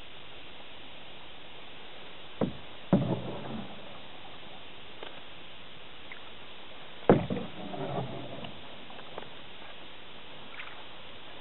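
Two slow canoe paddle strokes on calm water, about four and a half seconds apart: each a sharp knock followed by a brief splashing gurgle of water off the blade. A steady hiss lies underneath.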